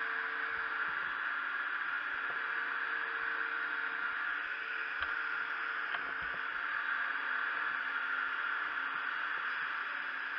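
Steady rushing hiss with a faint, even engine-like hum underneath, from fire hose streams and running firefighting machinery at a fire.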